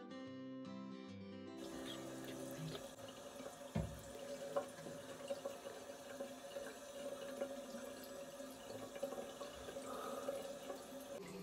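Water running from a bathroom tap into a sink, a steady splashing hiss with small clicks and a couple of knocks about four seconds in. Strummed guitar music plays for the first second and a half, then cuts off.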